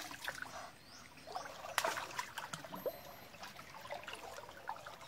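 Shallow creek water splashing and trickling lightly as hands grope under the surface, with irregular small splashes and drips and one sharper splash about two seconds in.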